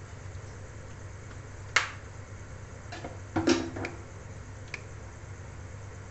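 Steady low kitchen hum while oil heats in an aluminium kadhai, with a sharp click about two seconds in and a short metallic clatter of cookware about a second and a half later, then a faint tick.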